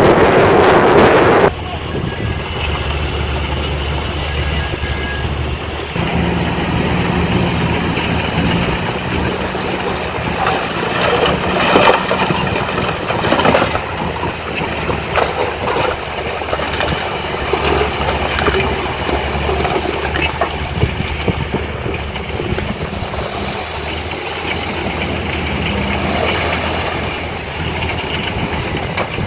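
Diesel engines of heavy earthmoving machinery running steadily, with scattered clanks and knocks. A loud rushing rumble at the start cuts off sharply about a second and a half in.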